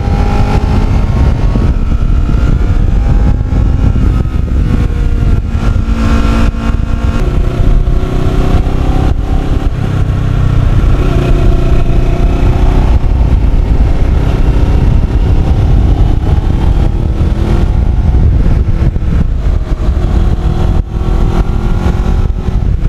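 2009 Kawasaki Ninja 650R's parallel-twin engine running under way, its note rising and falling with the throttle, over the rush of wind on the microphone.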